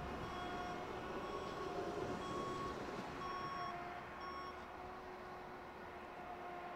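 Faint electronic warning beeps repeating about twice a second at two pitches, stopping about four and a half seconds in, over a low steady hum.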